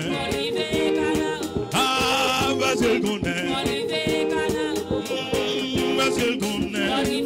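Worship song: a man singing a hymn refrain into a microphone over instrumental accompaniment with a steady beat.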